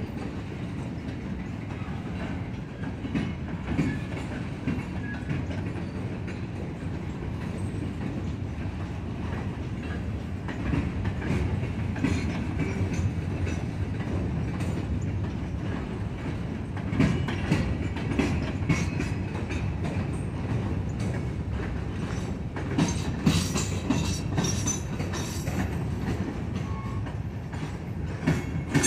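Coal hopper cars of a freight train rolling past, a steady low rumble with wheels clicking and clacking over the rail joints. The clicks grow busier and sharper in the second half, with a few faint high wheel squeaks.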